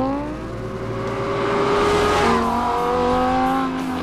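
Lamborghini Huracán's 5.2-litre V10 engine revving hard as the car accelerates. The pitch climbs, drops sharply a little past two seconds in as it shifts up a gear, and climbs again.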